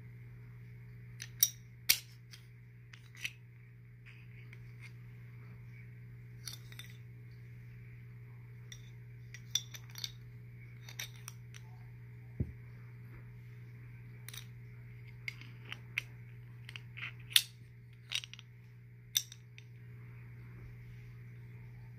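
Sharp metal clicks and clinks from a pistol slide, barrel and recoil spring assembly being handled during field-stripping, coming irregularly, over a steady low hum.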